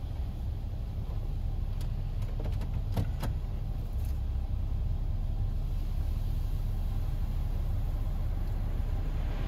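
Steady low rumble heard from inside a car's cabin in a Ryko Radius HT touchless car wash bay, with a few light ticks about two to three seconds in.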